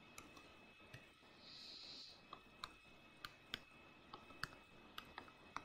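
Near silence with about a dozen faint, scattered clicks as points are marked on a graph on screen, and a brief soft hiss about one and a half seconds in.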